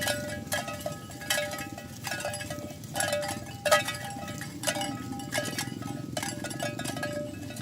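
Cowbells on walking cattle clanking, one ringing metallic knock roughly every second as the animals step, over a low steady rumble.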